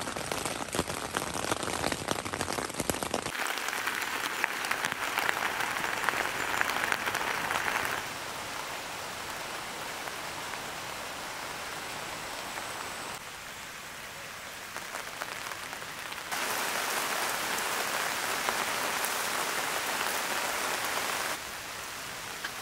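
Rain falling: many small drops tapping on a nylon tent fly heard from inside, then steady rain on grass and trees, the level changing abruptly several times.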